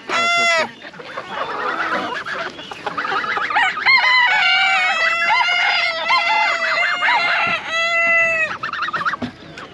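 Chickens calling: several roosters crowing, their long calls overlapping through the middle stretch, with hens clucking around them.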